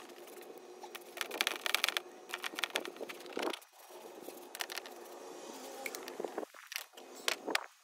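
Paintbrush strokes on plywood: bristles scraping across the wood in repeated short strokes, with a faint steady hum underneath.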